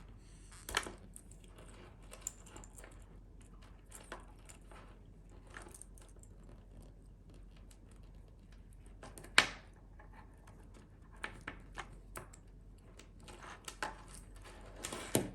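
Scattered small metallic clicks and taps from a stainless steel link watch band and the pin tool as links are worked loose, with one sharper click about nine seconds in and a few quicker ones near the end.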